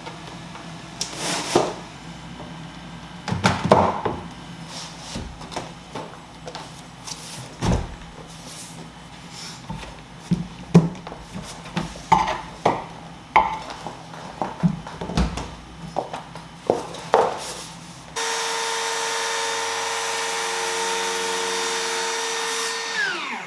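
Scattered knocks and taps of flooring planks and tools being handled, then a power saw's motor starts suddenly, runs at a steady pitch for about five seconds, and winds down falling in pitch near the end.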